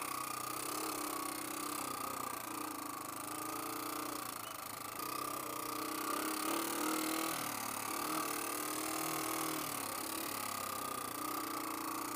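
Yamaha TW200's single-cylinder four-stroke engine running steadily at low riding speed, its note shifting a few times, with a hiss over it. By the rider's account the bike badly needs a valve adjustment.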